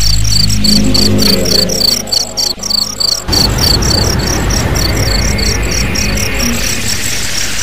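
Crickets chirping in an even pulse, about three chirps a second, over a low drone that turns into a rumble about three seconds in.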